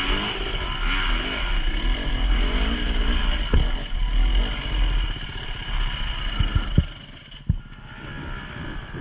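A vehicle engine revving under load, its pitch rising and falling, during a river crossing. It eases off about seven seconds in, with a few sharp knocks near the end.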